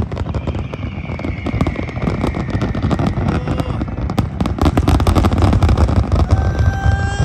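Large fireworks display: dense, rapid crackling and popping from many bursts over heavy low booms, getting louder in the second half. A faint whistle drifts slightly downward in pitch in the first few seconds, and a long held pitched tone comes in near the end.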